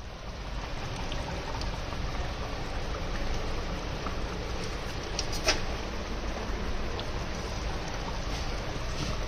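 Pans sizzling on the stove, a steady frying hiss, with a sharp click about five and a half seconds in.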